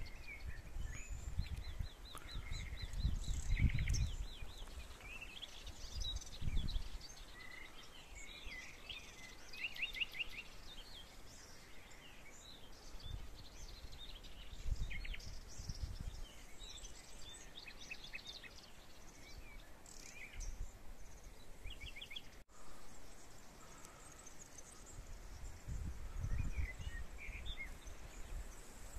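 Several wild birds chirping and singing, with fast trills of quick repeated notes now and then. Gusts of wind rumble on the microphone at times.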